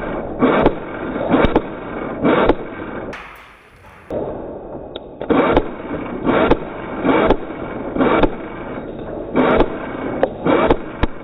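Airsoft rifle firing single shots, each a sharp click with a short burst, about ten shots spaced roughly a second apart with a pause of a few seconds partway through.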